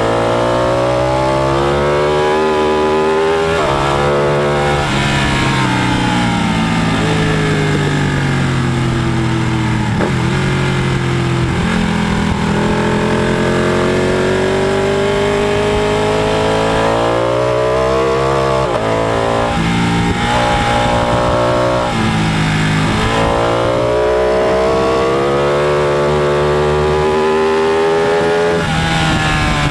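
Sport motorcycle engine at hard throttle on track. The revs climb steadily in each gear and fall away at each shift or braking point, several times over.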